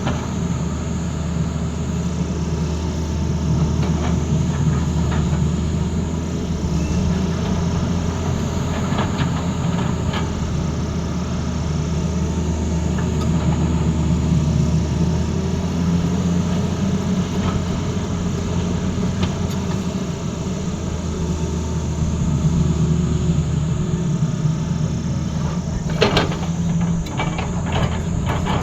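Tata Hitachi excavator's diesel engine running steadily under working load, its note shifting every few seconds as the machine works. A quick run of sharp clattering knocks comes near the end.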